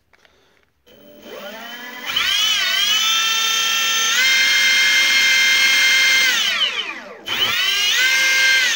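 15 kW brushless electric motor running sensorless on its controller, Hall sensors disconnected: an electric whine that rises as it spins up about a second in, holds high and steady at full speed, winds down with a falling pitch, then spins up again and begins to fall near the end.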